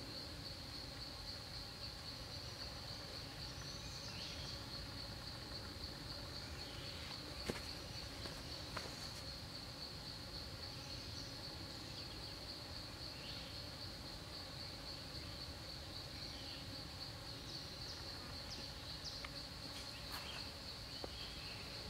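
Insects trilling in one steady high-pitched drone, with a few light clicks and taps, the sharpest about seven and a half seconds in.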